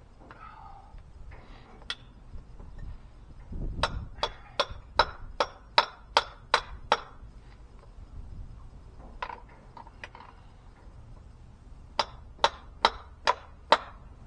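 Hammer blows on steel at an excavator track pin, each one ringing: a run of about nine steady strikes, then a pause, then about five more near the end.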